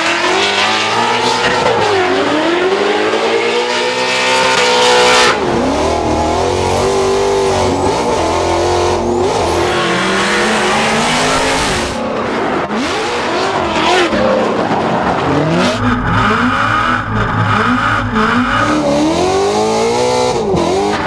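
Drift cars at full throttle, among them a Ford Mustang with a boosted 5.0 Aluminator V8. The engines rev up and down again and again over tyres squealing and sliding. The sound changes abruptly a couple of times.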